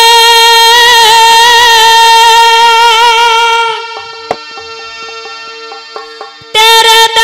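Haryanvi saang stage music through the PA: a loud held note for several seconds, then from about four seconds in a quieter run of short keyboard notes picking out a melody, and the loud held note again near the end.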